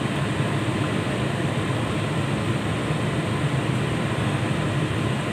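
Steady low rumbling noise from a pot of pork nilaga cooking on the stove, even throughout with no distinct knocks or clinks.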